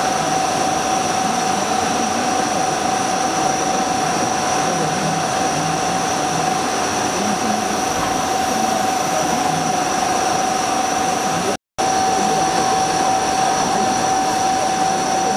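CNC turn-mill machine cutting under flood coolant: a steady high whine over a constant hiss of coolant spray. The sound drops out for a split second about two-thirds of the way through, then carries on unchanged.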